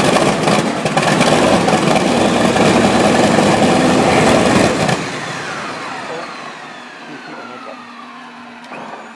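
Wright R-3350 18-cylinder radial aircraft engine cranking and firing in ragged, loud bursts for about five seconds, then cutting out and winding down, its pitch falling as it slows: it almost starts but does not keep running.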